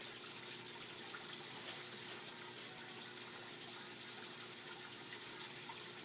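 Steady background hiss with a faint constant hum and no distinct events.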